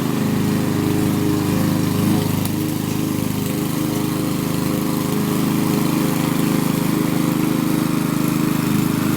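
Power lawn mower engine running steadily while cutting grass.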